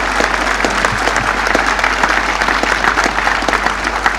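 A large crowd applauding steadily, with many hands clapping.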